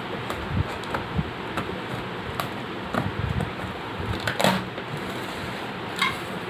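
Hands opening and handling a shipping package: scattered clicks, scrapes and crinkles over a steady hiss, loudest about four and a half seconds in and again near six seconds.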